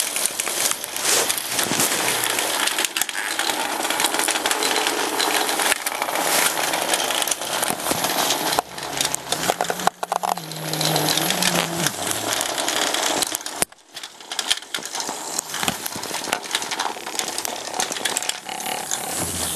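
Dense, continuous rattling and clicking of many small battery-powered toys running together on a plastic track, with a brief dip about two-thirds of the way through.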